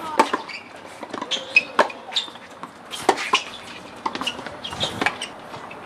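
Tennis balls struck by rackets and bouncing on outdoor hard courts: sharp pops at irregular intervals, with rallies on several courts overlapping.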